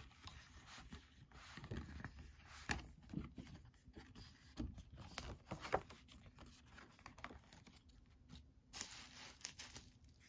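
Stiff pages of a three-ring binder being turned and smoothed by hand: irregular rustling and sliding with sharp clicks and taps, and a longer rustle about nine seconds in.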